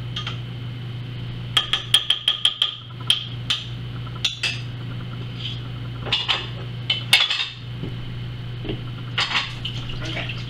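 Hard taps and clinks of kitchenware against a mixing bowl: a fast run of about eight taps about a second and a half in, then scattered knocks and a few short clusters.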